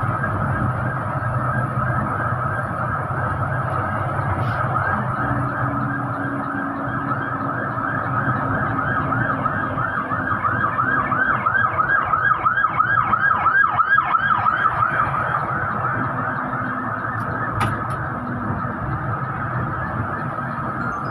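A vehicle running on the road with a steady low hum and a steady high tone, joined in the middle by a rapid siren-like warble, about four rises a second, that is the loudest part.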